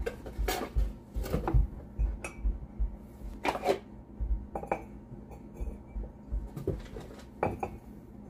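Ceramic mugs being set down on a wooden table and stacked on one another: irregular knocks and clinks as each mug touches the wood or another mug.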